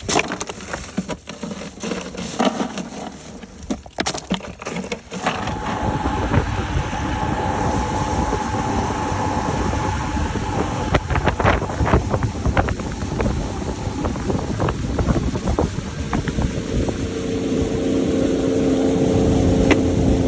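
Motorboat engine running steadily under way, its tone shifting with engine speed, with wind buffeting the microphone. A few knocks sound in the first seconds, before the engine comes up loud about five seconds in.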